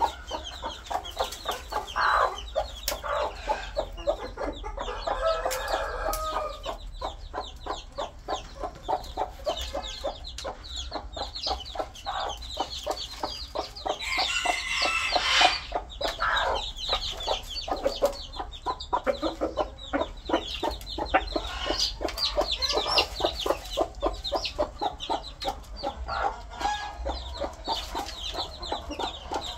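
Sussex bantam chicks peeping constantly while the adult hen and cock cluck around them at the feed, a flock of many quick short calls. A louder, longer call from one of the adult birds comes about fourteen seconds in.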